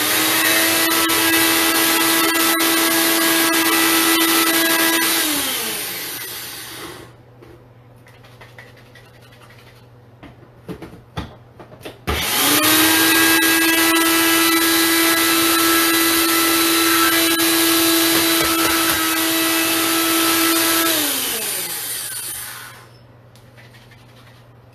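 Ninja blender motor running at full speed, chopping cauliflower into rice, then spinning down with a falling pitch about five seconds in. In the lull come a few knocks as the jar is shaken and its base smacked to drop stuck cauliflower back onto the blades. About twelve seconds in the blender starts again, runs for about nine seconds and winds down.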